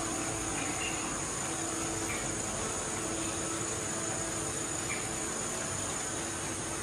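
Insects droning steadily in a continuous high-pitched chorus.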